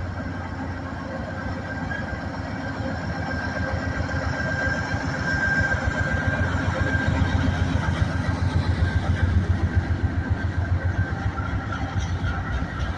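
Diesel locomotives of a freight train running past, pulling upgrade under load; the rumble builds over the first ten seconds, with a thin steady whine for a few seconds mid-way.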